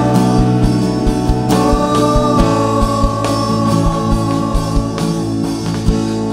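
Live worship band playing a slow song on electric guitar, bass, keyboard and drum kit, with a steady kick-drum beat under long held notes. Voices sing along.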